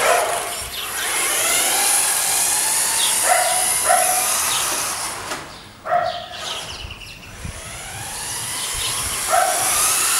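Electric RC car's battery-powered motor whining at speed, its pitch rising and falling as it speeds up and slows down several times.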